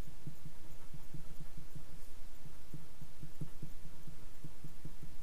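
Felt-tip marker writing on paper: a quick, irregular run of short, low, muffled rubbing strokes over a steady low background hum.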